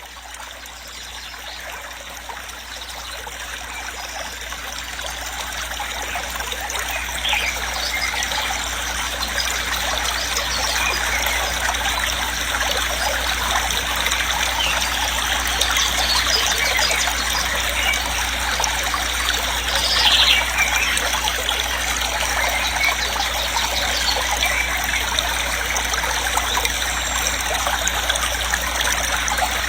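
Steady rush of falling and running water at a waterfall, growing louder over the first several seconds and then holding even.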